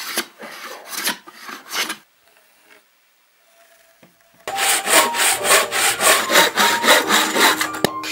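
Wooden hand plane shaving a board in strokes: a few at first, a quiet pause of about two seconds, then quicker, louder strokes about three a second. Piano music comes in near the end.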